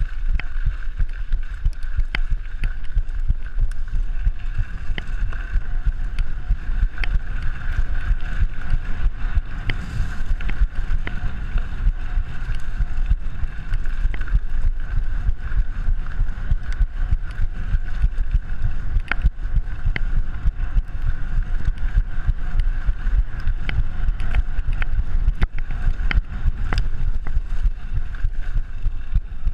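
Mountain bike riding over a gravel and dirt trail: steady wind rushing over the microphone with the rumble of tyres on loose ground, and frequent sharp clicks and rattles from the bike over bumps.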